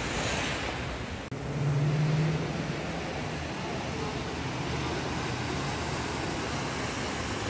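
Steady city road traffic noise with cars passing. It cuts out for an instant about a second in, and just after, a low hum swells for about a second before the steady traffic noise resumes.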